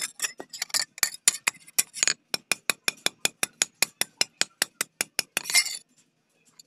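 Hand hammer striking a small piece of rusty steel on a steel block anvil: a fast, even run of light metallic clinks, about five a second, that stops about a second before the end.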